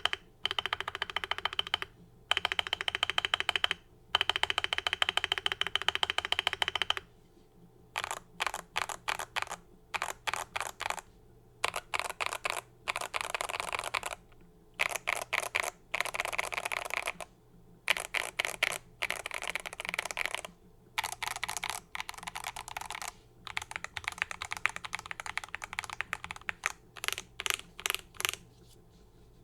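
Custom GMMK PRO mechanical keyboard being typed on quickly, with hand-lubed LOGA Cha Thai switches, hand-lubed TX stabilizers, a brass plate and Akko keycaps. The typing comes in runs of one to three seconds separated by short pauses, after a longer unbroken run in the first seven seconds.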